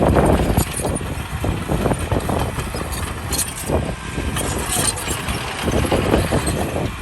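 Engine of heavy earthmoving machinery, such as a dump truck or bulldozer, running steadily with an uneven, fluctuating level.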